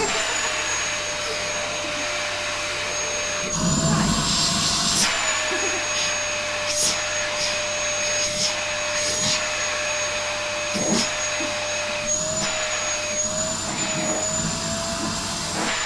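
Vacuum cleaner running steadily with a motor whine, being used to vacuum a cat's coat. Its pitch rises briefly a few times, and there is louder rustling about four seconds in.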